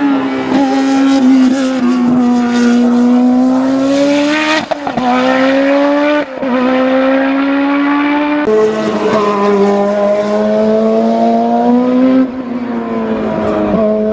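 BMW M12/13 1.5-litre turbocharged inline-four in a Brabham Formula One car running hard on track. The engine note sags and climbs slowly, with two brief drop-outs and a couple of sudden steps in pitch.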